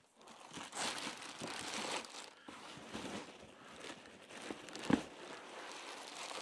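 Thin clear plastic packing bag crinkling and rustling as it is pulled off a foam-packed 3D printer, busiest in the first couple of seconds, with a single thump about five seconds in.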